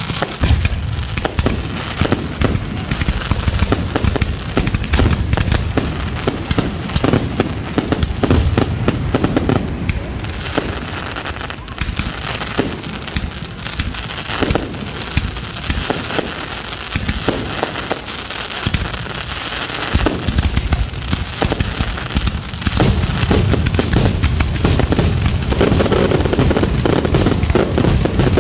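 Fireworks going off close by: a continual string of shells launching and bursting with crackle. The bangs come thicker and louder about three quarters of the way in as a barrage builds.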